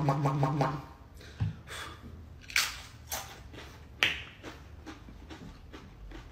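A man's held, hummed vocal tone that stops under a second in, then a few sharp mouth clicks and pops at uneven intervals, beatbox-style percussion made with a mouthful of hot sauce.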